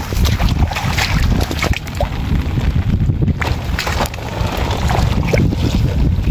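Wind buffeting the microphone in a steady low rumble, with scattered short splashes and knocks as a woven bamboo fish trap is lifted, dripping, out of shallow ditch water and handled over a bamboo basket.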